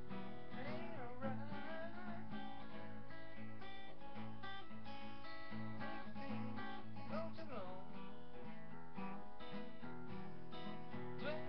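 Acoustic guitar strummed in a steady blues/rockabilly rhythm, with a few bent notes.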